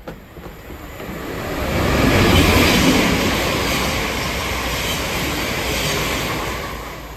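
A fast train passing through the station at speed without stopping: a rush of wheel and air noise that builds over about two seconds, holds steady, then fades near the end.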